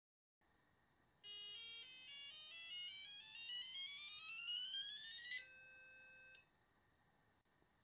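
Apple IIgs computer beeping during its built-in self-test: a run of short stepped electronic tones climbing in pitch for about four seconds, then one steady tone held for about a second before it cuts off. The self-test passes with "System Good".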